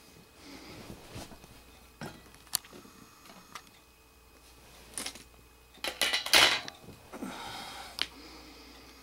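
Scattered clicks and knocks of handling, with a louder clatter about six seconds in as a screwdriver and marker pens are set down on the balance's metal top.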